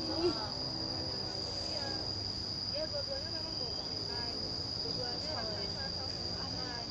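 Insects keeping up one steady, high-pitched drone, with faint voices now and then behind it.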